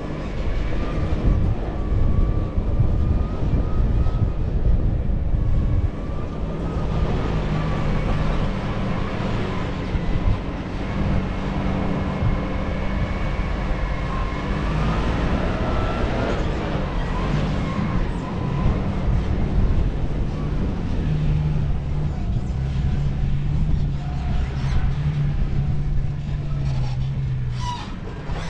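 Toyota Land Cruiser 70-series (LC71) running while driving, with a steady low rumble; the engine note shifts up and down a few times.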